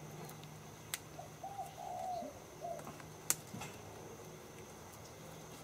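A dove cooing, a couple of short phrases between about one and three seconds in, with a few sharp clicks from the wrapping film being handled, the loudest about three seconds in.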